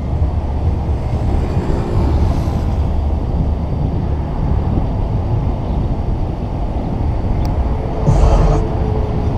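Car driving along a road at speed: steady engine and road noise with a heavy low rumble, getting louder briefly near the end.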